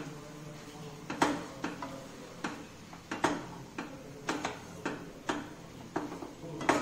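Spatula knocking and scraping against a non-stick kadhai while mixing poha, making irregular sharp clicks and knocks at about one or two a second.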